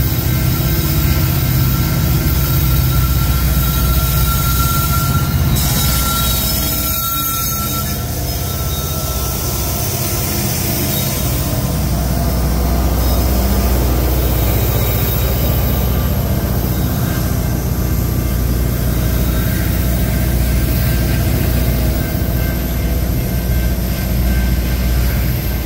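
Union Pacific freight train passing close by with a steady, loud rumble: the diesel locomotives go by in the first several seconds, then covered hopper cars roll past on the rails.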